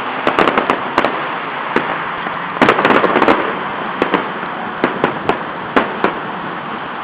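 Fireworks going off: quick clusters of sharp bangs and pops, then single bangs every half second or so, over a steady hum of background noise.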